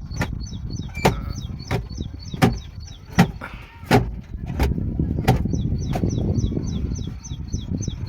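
Diesel engine of a JCB 3DX backhoe loader running, with a sharp knock about every 0.7 seconds and a rapid high chirping over it.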